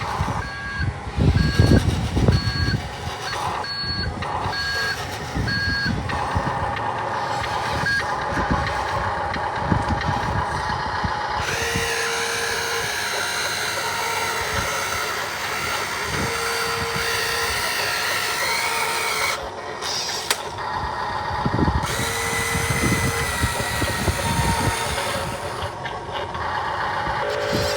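RC truck's reversing beeper sounding about once a second for the first six seconds, over the crunch and rumble of the truck moving. Later a whine rises and falls with the motor, and there are three longer, lower beeps.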